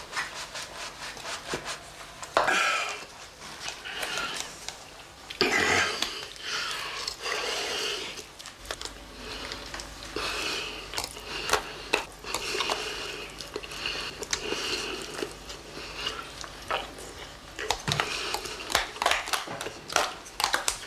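Cutlery and dishes clinking and scraping at a meal, with many short clicks and knocks scattered through.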